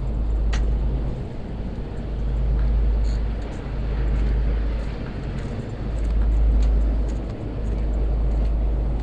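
Steady low hum of running machinery, with a deep rumble that swells and fades every second or two, like wind buffeting the microphone, and a few faint ticks.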